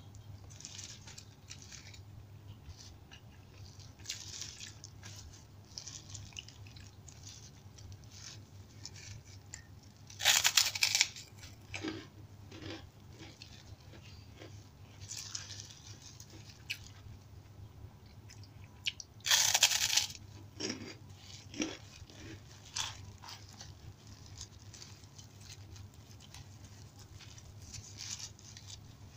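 Close-miked mukbang eating: a plastic-gloved hand squishing and mixing rice and side dishes, with soft wet smacks and chewing. Two loud, crisp crackly bursts come about ten and nineteen seconds in.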